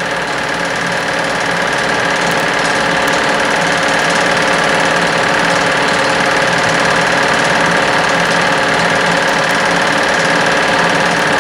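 Home-movie film projector running with a steady mechanical clatter from its motor and film-advance mechanism.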